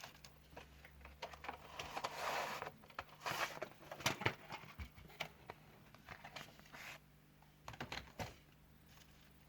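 Small clicks, taps and rustling of an LED ceiling light fitting being handled and taken apart, with a longer scraping rustle about two seconds in and a few sharper clicks near the end.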